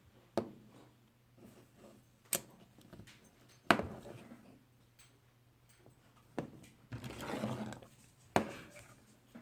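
Pocket knives being handled: five sharp metal clicks and knocks, with some rustling about seven seconds in.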